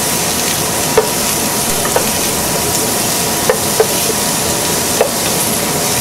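Mirepoix of chopped carrots and shallots sautéing gently in olive oil in a copper saucepan: a steady sizzle, with about five light knocks of a wooden spoon against the pan as it is stirred.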